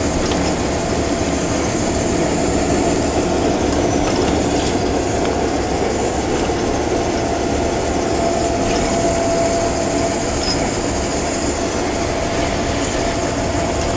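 Diesel-electric locomotive heard from inside its cab, moving at low throttle: a steady engine drone and rolling noise with a steady whine over it.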